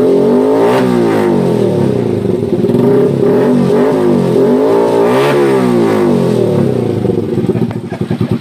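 Honda TMX 125 Alpha's single-cylinder four-stroke engine running through a newly fitted SC Project slip-on canister. It is revved up and down a few times, then drops back to a pulsing idle near the end.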